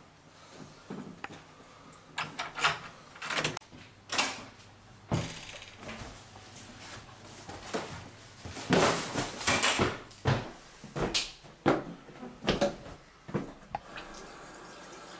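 Interior door being opened and swung, a run of clicks, knocks and thuds, with the loudest clatter a little past halfway.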